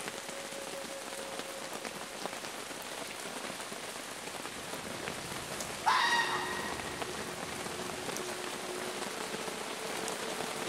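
Steady heavy rain pattering on a camping tarp, and about six seconds in a red fox calls once with a harsh cry lasting about a second.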